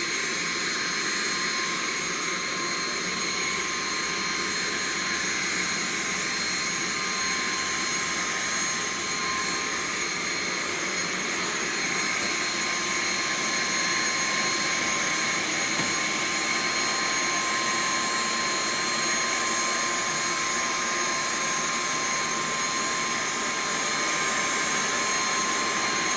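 Household vacuum cleaner running steadily, a high-pitched whine over a rushing hiss.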